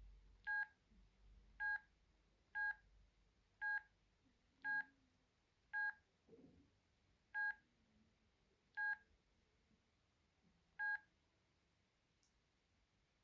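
Ericsson A2618s mobile phone's key beeps as its buttons are pressed to step through the menus: nine short, identical beeps, about one to two seconds apart.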